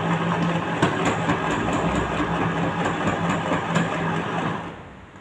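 Electric sewing machine running steadily while stitching a seam, then stopping near the end.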